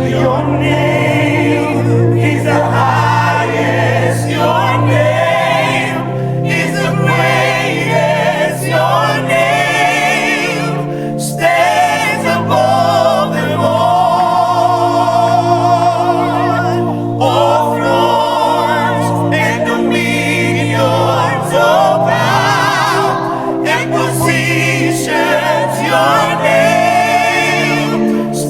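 A group of voices singing a gospel worship song with vibrato, over steady held low accompaniment notes that change every few seconds.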